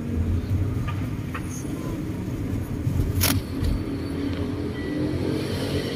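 A moving car's engine and road noise heard from inside through a partly open window, as a steady low rumble. A sharp click a little past halfway.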